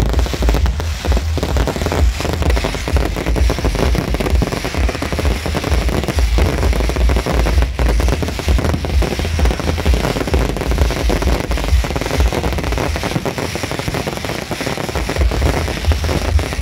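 Fireworks display at full barrage: a continuous dense crackling and rapid popping from many comets, crackling stars and shells going off at once, over a heavy low rumble.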